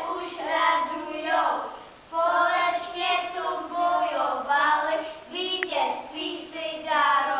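A group of children singing a song together, holding notes with short breaks between phrases.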